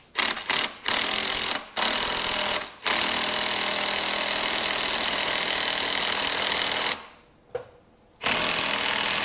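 Impact wrench hammering in bursts on a flywheel puller, trying to break the Polaris Sportsman 700's flywheel free of the crankshaft: several short blips at first, then longer runs, the longest about four seconds.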